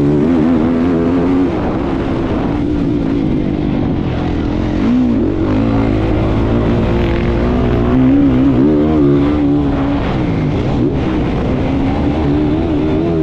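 Racing engine running hard, its pitch rising and falling again and again as it revs up and drops back.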